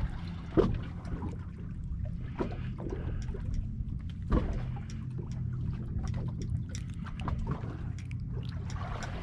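Water lapping and trickling against the hull of a small boat over a steady low hum, with two sharp knocks, one about half a second in and one about four seconds later.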